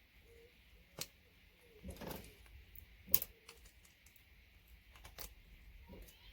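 Side cutters snipping and cracking the plastic housings of RJ45 ethernet connectors: a handful of separate sharp clicks and snaps, the loudest about three seconds in.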